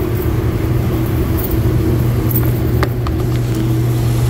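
Refrigeration rack's condenser fans running with a steady low hum, the newly fitted fan motors now powered up. A few faint clicks about three seconds in.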